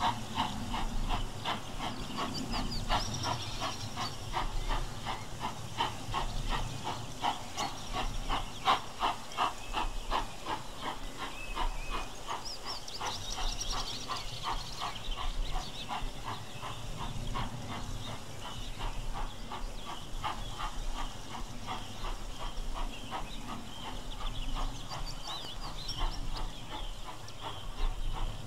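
LNER B1 class 4-6-0 steam locomotive working a train and climbing away, its exhaust chuffing in a steady, even beat over a low rumble. Brief high chirps come through a few times.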